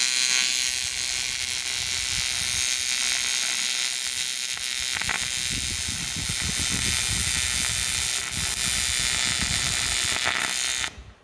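TIG welding arc on the cast aluminum bellhousing of a 4L80E transmission: a loud, steady hiss with a faint buzz as the weld bead is laid, cutting off abruptly near the end when the arc is stopped.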